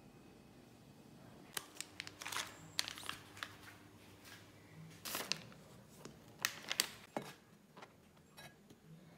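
Plastic packaging of a stack of wonton skins crinkling and crackling in sharp clicks as it is handled and opened on a plastic cutting board. A few fainter taps of a cleaver follow near the end.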